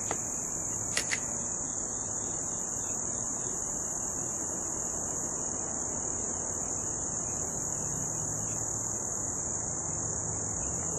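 A steady, high-pitched insect chorus of crickets, unbroken throughout, with two quick clicks about a second in.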